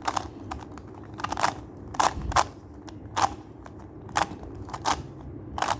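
Plastic clacks of a Skewb puzzle being turned through an algorithm: about eight sharp turns, irregularly spaced, roughly half a second to a second apart.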